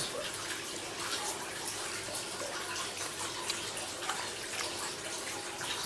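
Steady, even background noise with a few faint light clicks of a metal fork against a plate.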